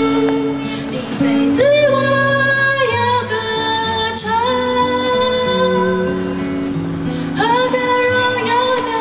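A woman singing a slow Christian worship song into a microphone, accompanying herself on a strummed acoustic guitar, with several long held notes.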